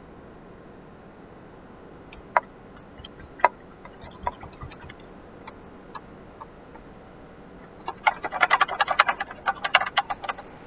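Light tapping and clicking from a paintbrush being worked, over a faint steady hiss: a few scattered taps, then a quick flurry of rapid taps about eight seconds in.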